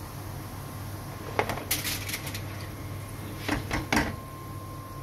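Hot oil sizzling steadily as small dough balls deep-fry in a pan, with several sharp clinks and knocks of the skimmer against the pan and tray: a quick run of them early, then two more near the end.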